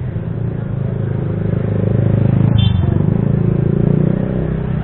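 A motor vehicle engine running close by, a low steady hum that swells for a couple of seconds in the middle. A brief high beep sounds about two and a half seconds in.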